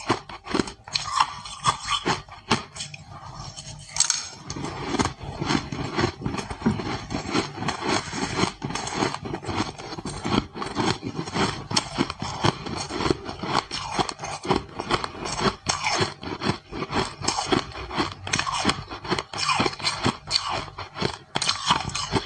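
Ice being bitten and chewed: a dense, steady run of crunches and cracks, a little sparser about two to four seconds in.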